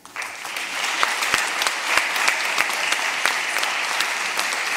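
Audience applause in a lecture hall: many people clapping steadily, starting all at once at the end of a talk.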